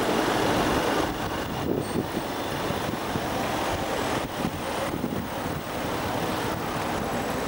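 Steady engine and road noise of vehicles moving slowly through street traffic.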